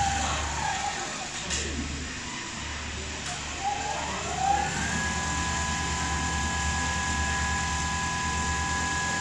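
Richpeace rotating-head automatic sewing machine running, its motor whine over a fast low needle-stroke hum. The whine drops in pitch at the start, wavers lower for about four seconds, then glides back up to a steady high pitch about five seconds in as the machine picks up speed again.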